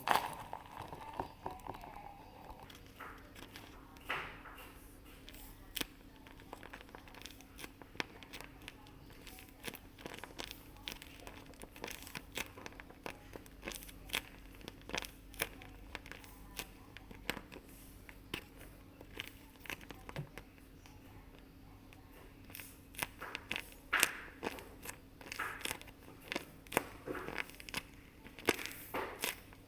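Paper and tape crinkling and rustling as paper squishies and their packaging are handled, with scattered sharp crackles that grow busier and louder toward the end. A faint steady hum sits underneath.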